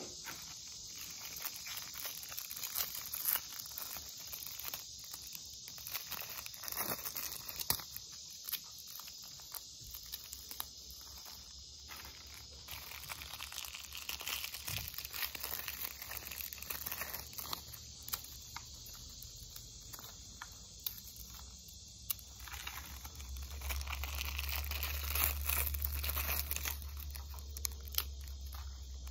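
Crinkling and tearing of food packaging with scattered handling clicks while someone eats, over a steady high insect chorus. A low rumble swells in the last few seconds.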